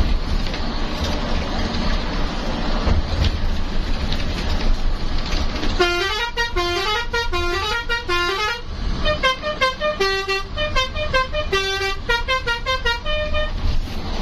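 Bus running on the road with a steady engine and road rumble, then about six seconds in its telolet horn plays a tune for about seven seconds: a few quick rising phrases repeated, followed by a longer run of stepping notes.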